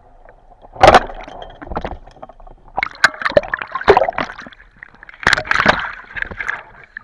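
Water splashing and gurgling in irregular loud bursts, the strongest about a second in and in a cluster around the middle and later part.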